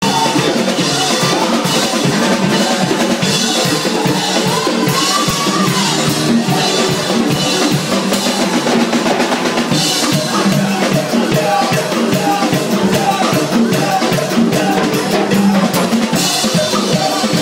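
Loud live church band music, a drum kit playing a busy beat with cymbal washes every few seconds over pitched instrumental notes.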